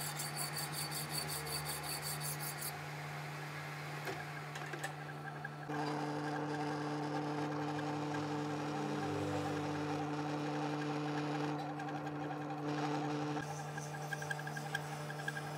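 Manual metal lathe running with a steady mechanical hum. A fast, even ticking sounds for the first few seconds, and a second, higher hum joins from about six seconds in until near the end.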